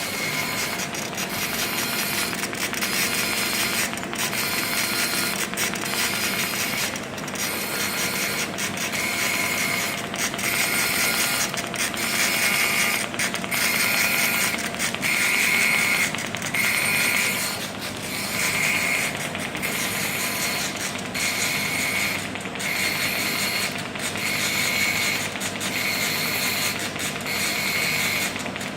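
Orbital TIG welding head running on steel pipe: the arc's buzzing hiss and the head's drive and oscillation mechanism. The sound pulses regularly, a little more than once a second.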